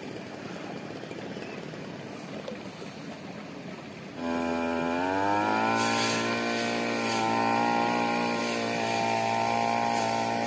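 A small petrol engine running nearby: about four seconds in it starts up loudly, its pitch rising for about a second and then holding steady. Before that, only a low, even hiss.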